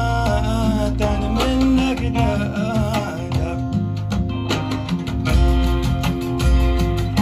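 Recorded music played over a home hi-fi system's loudspeakers through a CAT SL1 vacuum-tube preamp fitted with 1967 Valvo tubes: a wavering lead melody over a steady bass line.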